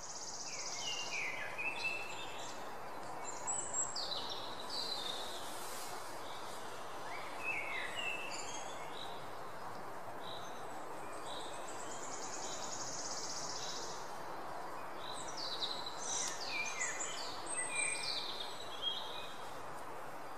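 Birds calling over a steady hiss of background noise: clusters of short falling chirps and, twice, a longer high trill.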